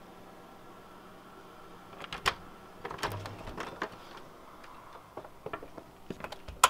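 Front door being unlocked and opened: scattered clicks and clunks of deadbolt locks and the door handling, ending in a sharp latch click.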